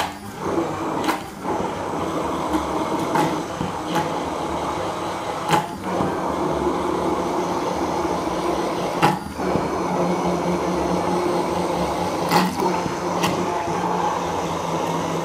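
Hand-held immersion blender running in a tall plastic beaker, puréeing roasted pumpkin with coconut milk and water. A steady motor whine, with brief dips several times as the blade is worked through the mixture.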